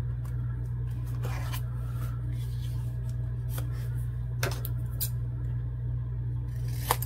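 Scissors snipping paper, a few short sharp cuts in the second half, with paper being handled in between. A steady low hum runs underneath.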